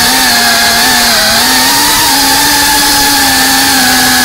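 FPV drone's electric motors and propellers whining loudly in fast flight, the pitch wavering with the throttle and stepping up a little about one and a half seconds in.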